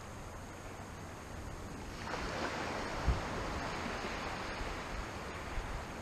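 Gusty wind on a beach, rumbling on the microphone, with a broad rushing hiss that rises about two seconds in and stays.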